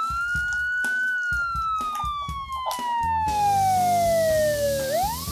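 A fire engine siren: one long wail that falls slowly over about four seconds, then starts rising again near the end. Light background music plays underneath.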